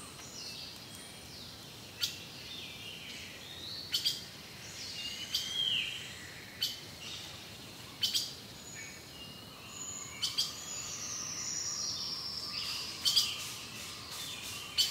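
Birds calling and singing: sharp high chips about every two seconds, mixed with short whistled notes that rise and fall, and a long falling whistle past the middle.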